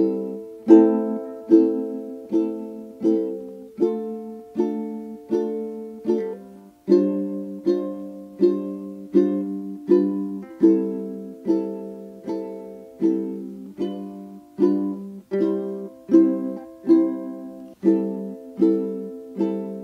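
Background music: strummed string chords at a steady beat, about one strum every three-quarters of a second, each ringing out and fading before the next.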